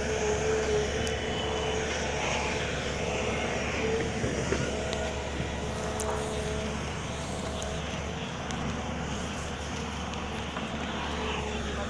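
A tracked excavator's diesel engine running steadily while it moves earth.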